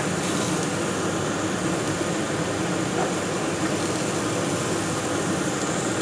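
Pork neck grilling on a wire grate over a gas burner: a steady sizzling hiss from the meat and the flame.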